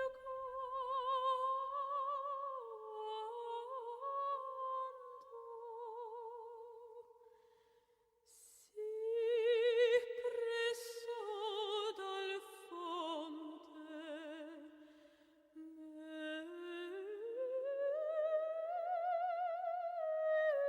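Music: a slow, unaccompanied opera-like melody in a high voice, long held notes with wide vibrato. It fades out about eight seconds in and starts again about a second later.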